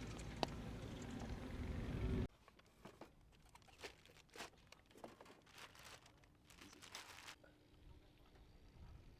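Wind noise rumbling on the microphone for about two seconds, cut off abruptly; then crinkling and tearing of packaging with small clicks as bike parts are handled and unwrapped, fading out near the end.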